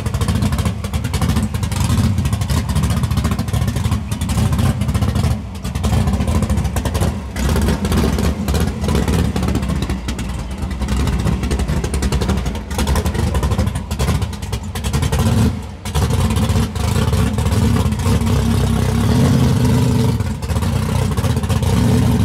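Chevrolet COPO Camaro drag car's V8 running loud and choppy at low speed, with a few brief dips, as it creeps up onto a flatbed hauler.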